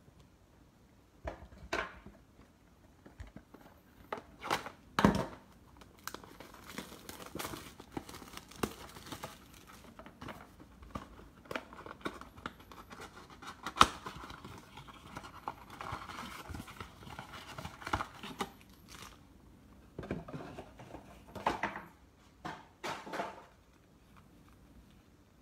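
Cardboard blaster box of trading cards being handled and torn open: tearing and crinkling of the box and its wrapping, with scattered knocks and sharp clicks, then the foil-wrapped card packs being pulled out and set down on a wooden table.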